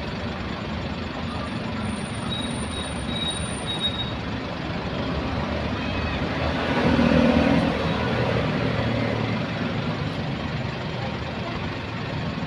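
Steady motor-vehicle traffic noise, getting louder about seven seconds in as a vehicle passes, with a few faint high beeps between about two and four seconds in.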